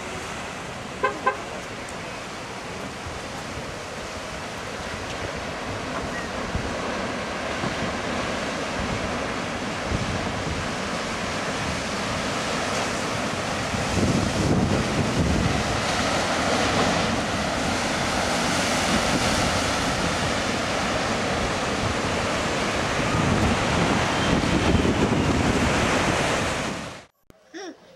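Ocean surf breaking on a rocky shore: a continuous wash of rushing water that swells louder about halfway through and again near the end, then stops suddenly.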